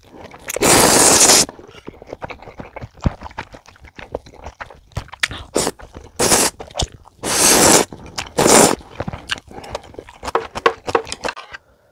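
Ramen noodles from budae-jjigae slurped loudly in four noisy pulls, a long one about a second in and three shorter ones between about six and nine seconds, with wet chewing clicks in between.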